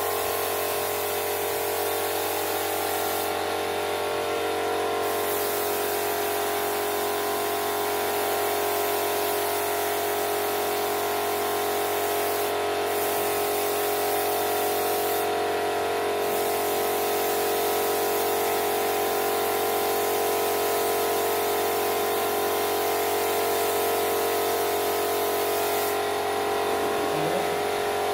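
Compressed-air spray gun hissing steadily as it sprays wood polish, over the steady hum of the air compressor feeding it. The hiss eases briefly a few times.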